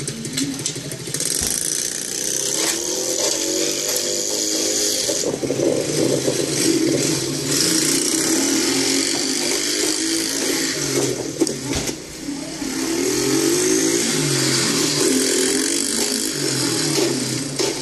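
Small mini-bike engine running and revving up and down in pitch, heard played back through computer speakers and re-recorded.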